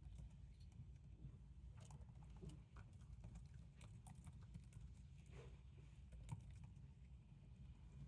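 Faint, irregular key clicks of typing on a laptop keyboard over a low, steady room hum.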